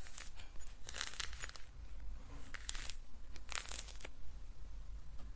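A peeled orange being pulled apart into segments by hand: a few short, wet tearing sounds of pith and segment skin, clustered about a second in and again at around three and a half seconds.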